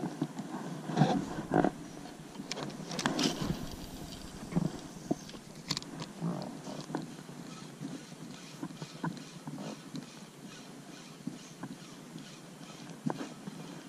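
Handling noise of fishing gear in an inflatable rubber boat: a run of irregular knocks and rubbing in the first few seconds, then lighter, evenly spaced ticks.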